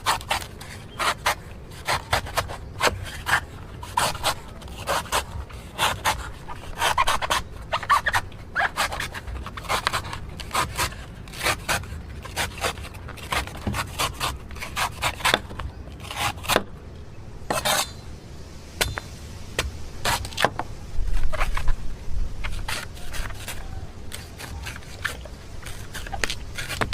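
A blade cutting into a yellow coconut: a run of short, sharp scraping cuts, about one or two a second, that thin out after about two-thirds of the way through, with a dull low bump a little later.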